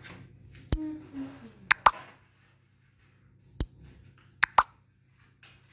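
A few sharp clicks and taps with quiet gaps between them, two of them coming in quick pairs.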